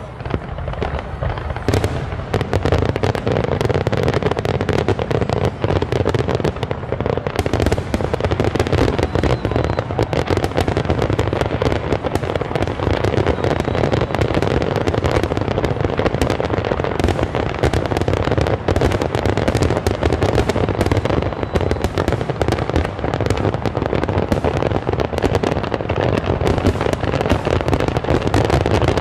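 Aerial fireworks shells bursting in a dense, continuous barrage of overlapping bangs and crackles, getting fuller and louder about two seconds in.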